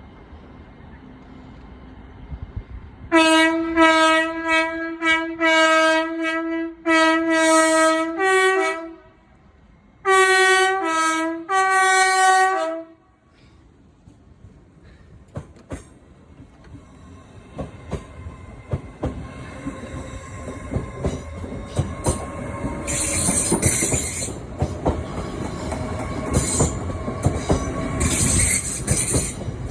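Train horn blown in a series of short blasts, in two groups, with the pitch stepping up at the end of each. Then the train approaches and passes, its wheels clacking over rail joints and squealing, growing louder toward the end.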